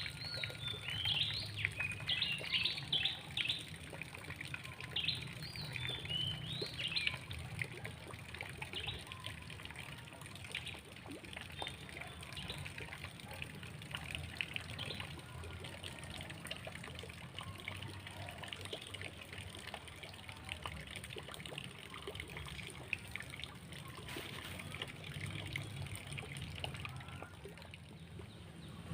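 Small birds chirping in quick, busy runs during the first several seconds, then more sparsely, over a steady trickle of river water.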